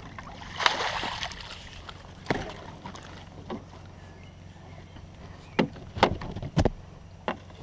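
A landing net with a caught zander in it is lifted out of the river, giving about a second of splashing water. Then come a sharp knock and, later, a quick run of knocks as the net is handled on the boat's deck.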